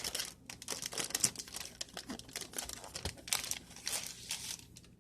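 Packaging crinkling and rustling, with some tearing, as a bundle of comic books is unwrapped by hand: a run of irregular crackles.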